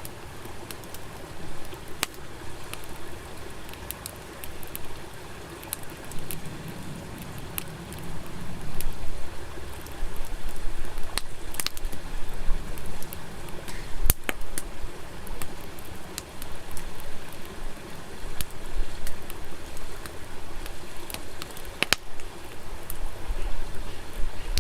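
Wood campfire burning, crackling with scattered sharp pops over a steady hiss.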